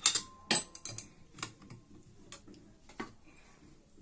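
Metal tools and engine parts clinking and knocking as the engine is worked on: two sharp clanks in the first second, one ringing briefly, then a few lighter taps.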